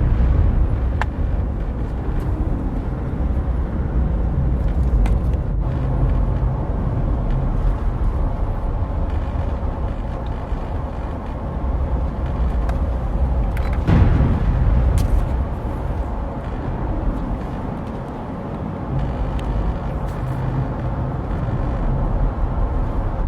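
Thunderstorm sound: a steady low rumble with a sharper crash of thunder about fourteen seconds in.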